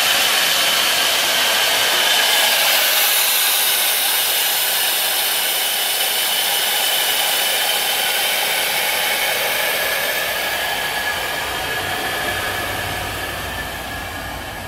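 Compressed air blowing out of a Speedaire vertical air compressor tank through an opened ball valve: a loud, steady hiss with faint whistling tones, slowly fading as the tank pressure drops.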